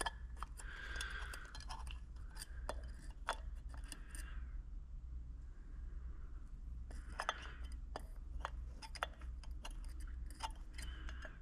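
Small hand tools clicking, tapping and scraping on a 4L80E transmission valve body as a roll pin is worked out to free a valve, in scattered irregular strikes with short scrapes between them.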